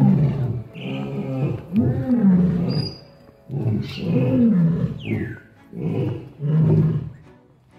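Lion roaring: a series of deep calls about one a second, each falling in pitch.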